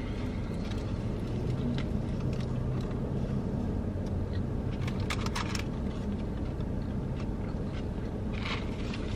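Steady low hum of a car running, heard from inside the cabin, with faint chewing and a few short clicks about five seconds in.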